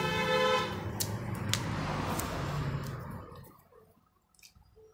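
18V cordless drill running steadily with a motor whine, then stopping about three and a half seconds in; a few faint clicks follow.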